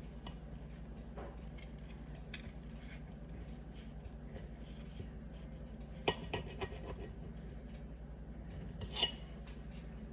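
A utensil cutting food against a plate: scattered scrapes and clinks, with a quick run of sharp clicks about six seconds in and another louder clink near nine seconds. A steady low hum runs underneath.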